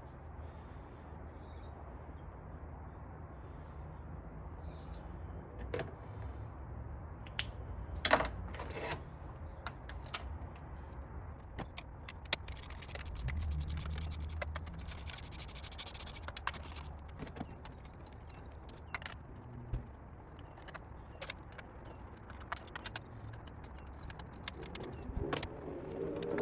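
Metal hand tools and spark plugs clinking and clicking as they are handled, with scattered sharp clicks and a denser stretch of rapid clicking and scraping about halfway through.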